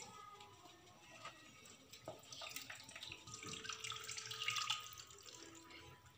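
Faint wet squishing of grated coconut being squeezed by hand in water to make coconut milk, then the milk poured from a plastic bowl through a plastic strainer into a metal pot, the pouring about halfway through.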